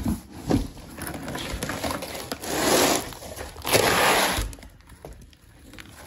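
Cardboard shipping box being opened by hand: a few knocks, then two longer rustling scrapes of cardboard about a second apart, followed by lighter rustling of plastic-wrapped parts.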